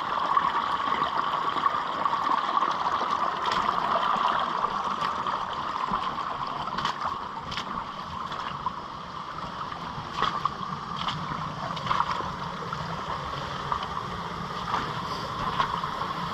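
Fast-flowing creek water rushing steadily down a gully, with a few sharp ticks and knocks scattered through.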